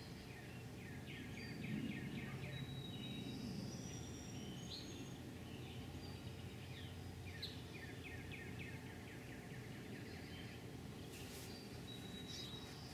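Small birds chirping, with two bursts of rapid trilled notes and short high whistles, over a faint steady background hum.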